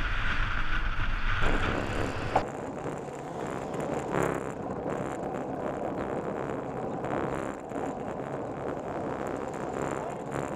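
Wind buffeting the microphone and road noise of a bicycle-mounted camera while riding along a road. The sound changes abruptly with a click about two and a half seconds in, becoming lighter rushing and rattling, with a brief louder swell about four seconds in.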